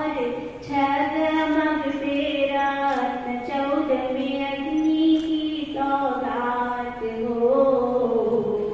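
Women singing a Jain devotional chant in long, drawn-out notes that slide in pitch.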